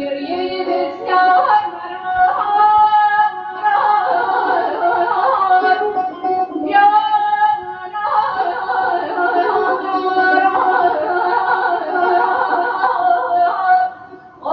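A woman singing Persian classical avaz, holding notes with quick wavering ornaments and pausing briefly near the end.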